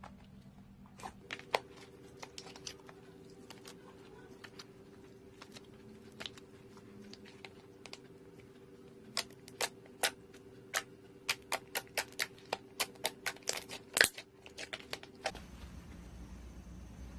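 Slime being pressed and worked by hand, giving sharp popping clicks as trapped air bursts. They are scattered at first, then come in a quick run of about two a second in the second half, the loudest near the end.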